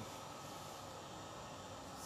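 Quiet, steady background hiss and low hum with no distinct event: room tone.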